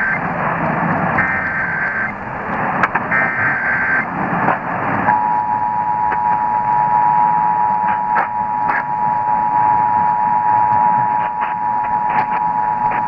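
Emergency Alert System signal received over AM radio. First come the last two of the three SAME header data bursts, each about a second long and a second apart. About five seconds in, the steady two-tone attention signal (853 and 960 Hz) starts and holds to the end. All of it sits under constant AM static, and it opens a Required Monthly Test.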